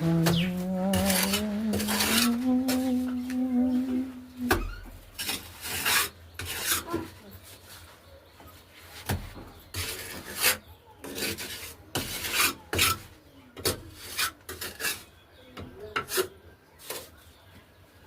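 Repeated rough scraping and rubbing strokes, irregular in spacing, as filler is worked into the joints around a newly fitted mixer tap. Over the first four seconds or so a drawn-out tone rises slowly in pitch above the scraping.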